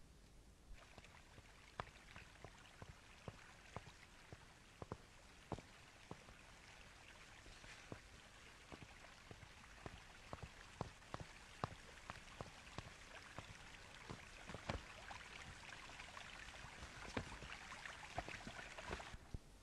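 Faint rain-like patter: a soft hiss with many scattered, irregular clicks. It starts just under a second in and stops shortly before the end.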